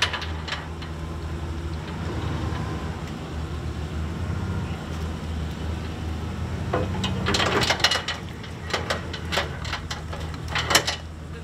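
A boat being winched or driven up onto its trailer: a steady low motor hum throughout, with clusters of clunks and knocks as the hull meets the trailer, about seven seconds in and again near the end.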